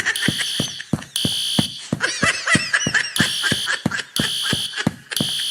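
Fire alarm sounding in repeated horn blasts, about one a second, over a rapid regular ticking.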